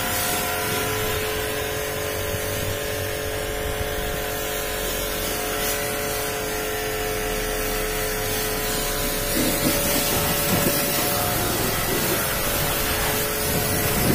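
Pressure washer running, with a steady hum and the hiss of its water jet spraying over a car's bodywork and wheel. The spatter grows a little louder about nine seconds in.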